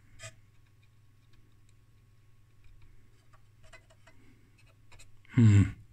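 Faint irregular clicking and crackling from a cracked solder joint on a heavy component in an IMPO lab power supply as it is pressed and moved, the connection making and breaking, over a faint steady low hum. About five seconds in, a brief loud buzz that falls in pitch.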